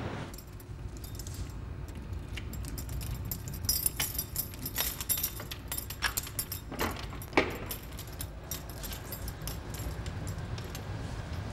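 Keys jangling: a run of light, sharp clinks and clicks, thickest between about four and seven seconds in.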